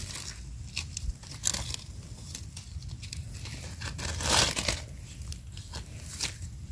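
Dry fallen leaves crackling and rustling in many small clicks as a mushroom is dug out of the leaf litter by hand with a knife, with a louder rustle about four seconds in.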